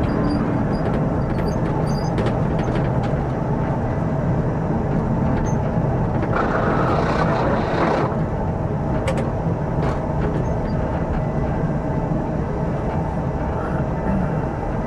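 Electric tram running along snow-covered rails, heard from the driver's cab: a steady low rumble of wheels and running gear. A louder hiss rises over it for about a second and a half midway.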